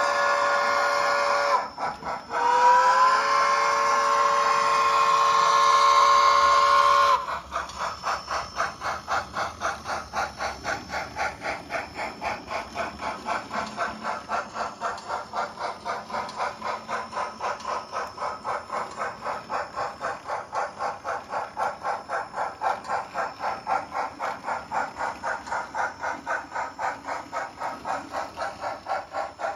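Sound-equipped H0n3 model of a Colorado & Southern Mogul steam locomotive. Its steam whistle blows twice, a short blast and then a longer one of several seconds. The whistle gives way to steady chuffing at about three beats a second as the locomotive hauls its train.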